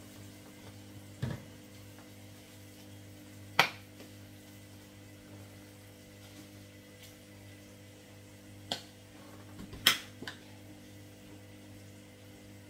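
Scattered sharp clicks and knocks of sauce and spice bottles being handled at the stove, about five in all, the loudest about three and a half and ten seconds in, over a steady low hum.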